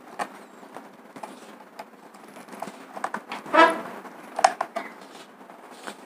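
Faint clicks and scraping of a small screwdriver tightening a wire into a socket terminal on a switchboard. A brief pitched sound, the loudest thing here, comes a little past halfway, and a shorter one follows about a second later.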